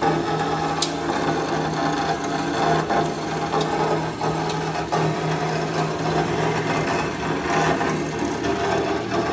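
Kalamazoo H9AD horizontal metal-cutting band saw running, its blade cutting slowly through a thick piece of metal. A steady motor hum under the even noise of the cut.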